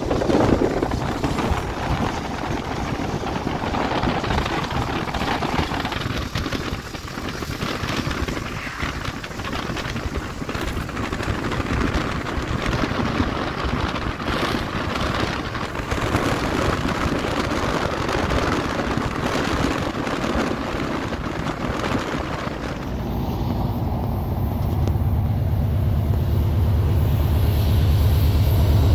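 Wind and road noise from a moving car for most of the stretch. About 23 seconds in, it gives way to a BNSF GE C44-9W diesel locomotive approaching, its engine's low, steady sound growing louder.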